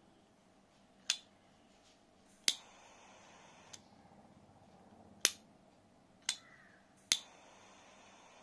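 Pocket jet-torch lighter: sharp metallic clicks of the flip lid snapping open and the piezo ignition firing, five clicks in all. Twice, right after a click, the blue jet flame lights and hisses steadily for about two seconds.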